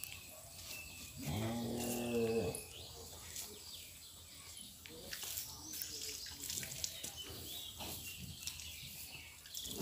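One of the cattle moos once, a single call about a second and a half long, starting a little over a second in.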